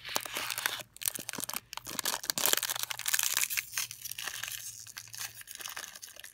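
Snack-bar wrapper being ripped open at its easy-open notch and crinkled by hand, a run of irregular crackling rips and rustles.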